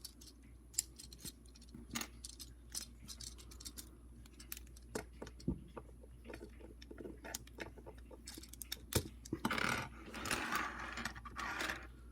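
Hard plastic toy pieces clicking and scraping as snap-on armor parts are pulled off the pegs and ports of a Transformers action figure: scattered small clicks, then a longer rattling scrape near the end.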